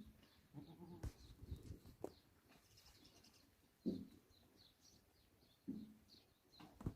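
Faint, scattered bird chirps, with a few short, low calls about four and six seconds in.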